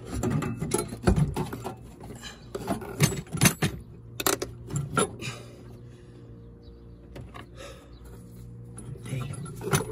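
Metal clinks, scrapes and sharp knocks as a turbocharger is worked loose and manoeuvred out of a diesel engine bay, its housing knocking against the surrounding engine parts. The knocks come in a busy run over the first five seconds, then it goes quieter for a few seconds before the clatter picks up again near the end, with a steady low hum underneath.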